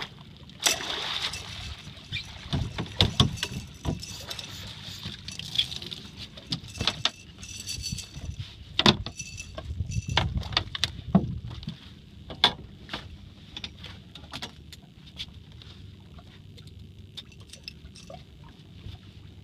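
Water splashing as a hooked redfish is netted at the side of the boat, followed by a run of knocks and thumps as the landing net and the flopping fish come onto the boat deck, thinning to a few faint clicks near the end.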